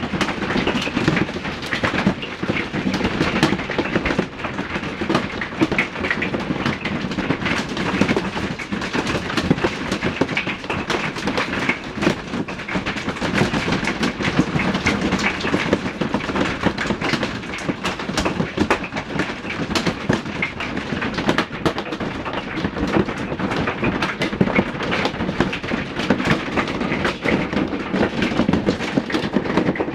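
Heavy hail falling: a dense, unbroken clatter of hailstones striking hard surfaces over a steady rush of rain.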